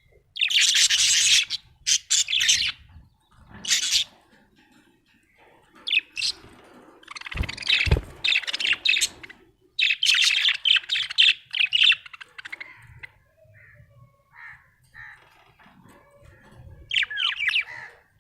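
Budgerigar chirping in short bouts separated by pauses, with a brief low thump about eight seconds in.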